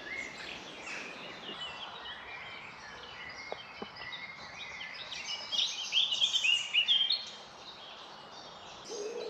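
Woodland songbirds singing, many quick chirping phrases overlapping, with a louder, fast run of notes a little past the middle.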